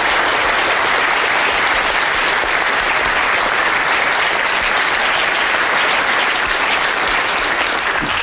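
A lecture-theatre audience applauding steadily, many hands clapping together.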